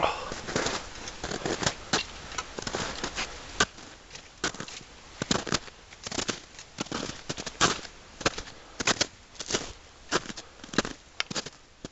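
Footsteps crunching in snow, about two crunchy steps a second at a walking pace.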